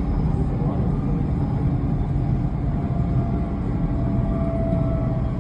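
Canada Line SkyTrain train running along the track with a steady low rumble. A faint thin tone rises in level from about halfway through.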